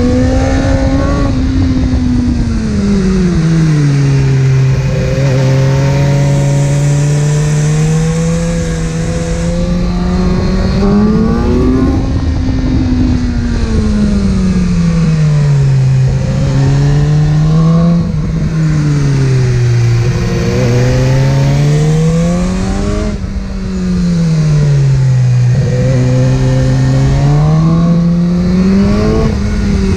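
Inline-four sport motorcycle engine under way, revs rising and falling again and again as the throttle is rolled on and off, with a few seconds of steady cruising after the first drop.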